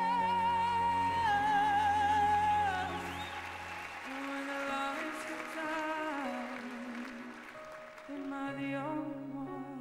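A teenage male singer holds a long high note with vibrato over backing music, steps it down twice, then carries on with softer gliding phrases as the song winds down and grows quieter.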